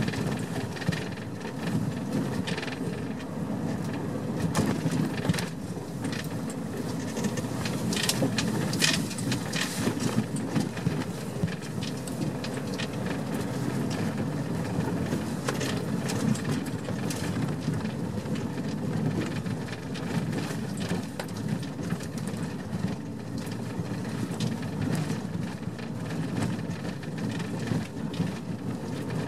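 Vehicle engine and road noise heard from inside the cab while driving over a broken, potholed road, a steady hum with scattered knocks and rattles, most of them about eight to nine seconds in.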